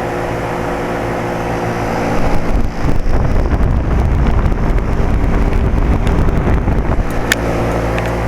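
2007 Carrier 2.5-ton single-stage condensing unit running steadily: compressor hum and condenser fan. A louder low rumble comes in about two seconds in and drops away near the end. The owner suspects the unit may be low on R-22 refrigerant.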